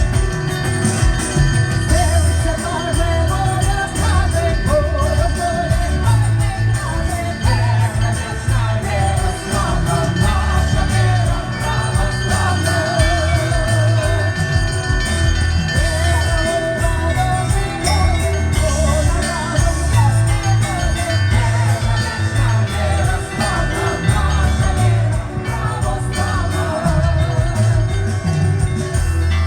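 Russian Orthodox church bells rung together in a continuous peal. Small bells are struck in a quick rhythm over repeated deep strokes of a large bell.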